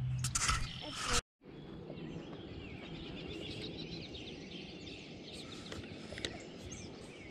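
A few sharp clicks and knocks in the first second, then, after a brief dropout, a steady chorus of pond frogs: many short, high calls overlapping.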